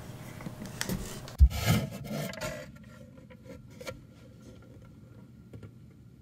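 A wooden treasure chest handled and its lid raised: wood rubbing and scraping, with one loud thump about a second and a half in. After that it turns much quieter, with only a few faint ticks.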